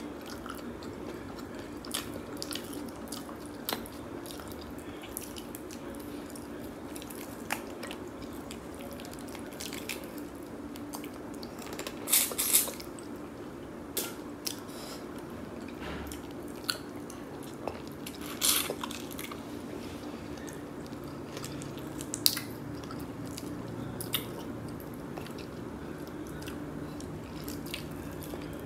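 Close-up eating sounds of a sauced blue crab seafood boil: wet chewing, sucking and smacking, with scattered sharp cracks and crunches of shell, loudest twice in the middle. A steady low hum runs underneath.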